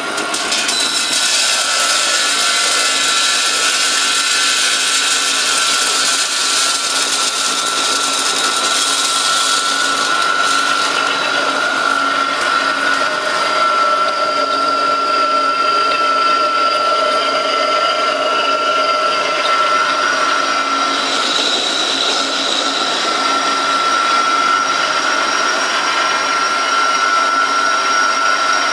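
Stainless-steel colloid mill grinding peanuts into peanut butter, its electric motor and grinding head running steadily with a high whine. A harsher hissing grind is strongest for the first ten seconds or so, then settles into a smoother steady run.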